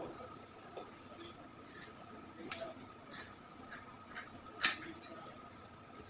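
Tailor's scissors cutting through cloth, a few sharp snips of the blades, the loudest about two-thirds of the way in.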